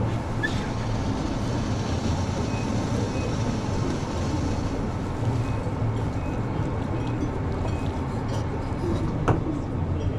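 Steady low hum of commercial kitchen machinery. Faint short high beeps repeat about twice a second, and a single sharp click comes near the end.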